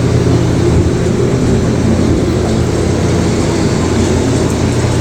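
A steady, loud low rumble with a constant machine-like hum beneath it.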